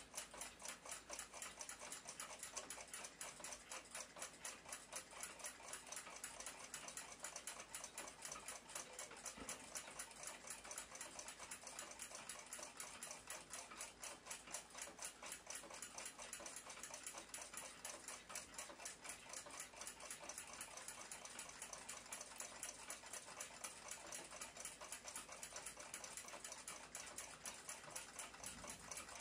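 Faint, fast, steady ticking of a mechanical clock.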